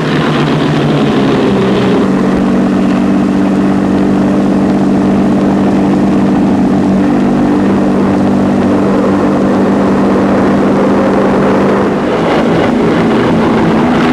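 Steady drone of a four-engined piston airliner's propeller engines, the Rolls-Royce Merlins of a Canadair North Star, stepping up slightly in pitch about two seconds in and dipping briefly near the end.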